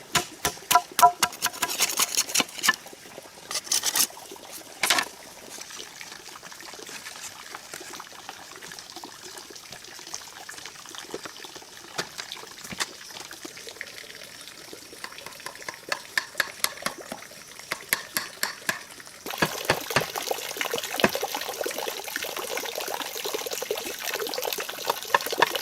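Sharp knocks and taps of bamboo pieces being cut and fitted by hand, in clusters. Under them is a steady rushing like running water, which steps up abruptly and gets louder about three-quarters of the way through.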